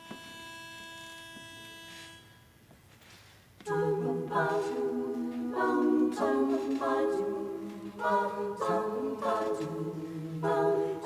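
A pitch pipe sounds one steady note for about two seconds, giving the key. About a second and a half later a women's barbershop chorus comes in loud, singing a cappella in close harmony with sustained chords.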